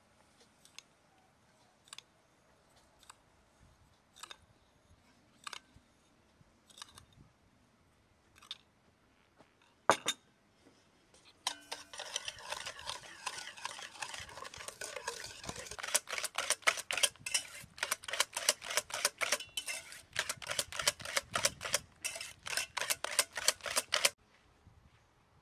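Light spoon taps, then a sharp clink about ten seconds in, then a wire balloon whisk beating eggs and sugar in an enamelled metal bowl: rapid, regular rattling strokes of the wires against the bowl, which stop abruptly near the end.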